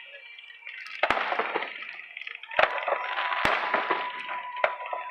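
Aerial fireworks going off: sharp bangs about a second in, at two and a half, three and a half and four and a half seconds, each followed by crackling.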